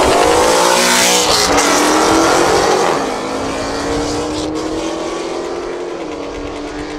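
American muscle car accelerating hard: the engine note climbs in the first second or so, then about three seconds in the sound drops in loudness and a lower note rises slowly as the car pulls away.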